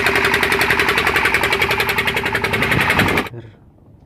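Fishing boat's engine running under way, a loud, fast, even chugging that cuts off suddenly a little over three seconds in.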